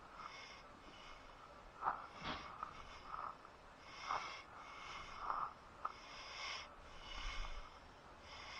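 A congested man's nasal breathing and sniffing close to the microphone, about one breath a second, his nose stuffed up for want of a decongestant.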